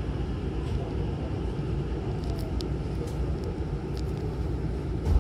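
Hankyu Takarazuka Line train heard from inside the car while running: a steady low rumble with a few faint clicks. A louder low rumble starts suddenly at the very end.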